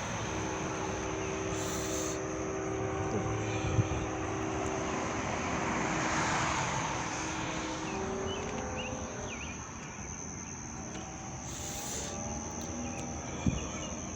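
A steady distant engine drone that fades out about nine seconds in, over a constant high-pitched insect trill.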